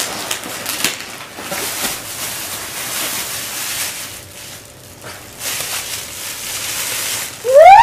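Plastic packaging crinkling and rustling as a plastic-wrapped dog bed is pulled out of a mailer bag and lifted. Just before the end a loud high-pitched wail starts, rising and then holding.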